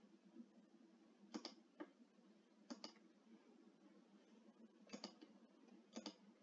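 Faint computer mouse clicks, four of them spread a second or more apart, each a quick double tick of button press and release, with a fainter single tick after the first.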